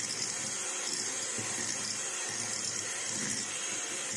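Electric hand mixer running steadily, its beaters whisking a batter of eggs and sugar as oil is mixed in, with an even, high hiss.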